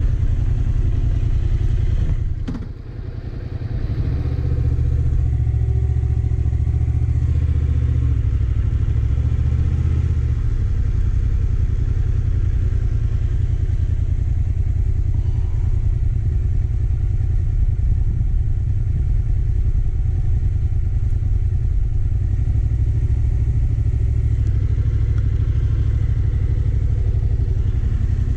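Motorcycle engine running at low speed, with a click and a brief dip in level about two and a half seconds in.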